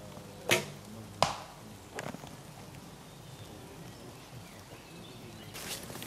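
A recurve bow shot: the string snaps on release about half a second in, and the arrow strikes the target with a sharp crack under a second later. A fainter knock follows, with rustling near the end.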